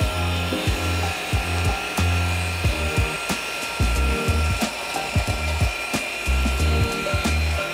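Background music with a steady bass beat over a pendulum cross-cut saw running with a steady whine as it cuts through a wooden board.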